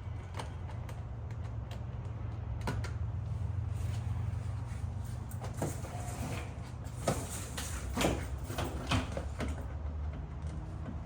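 Scattered clicks and knocks of parts and tools being handled during wiring work, with a denser run of sharper clatters about seven to nine seconds in, over a steady low hum.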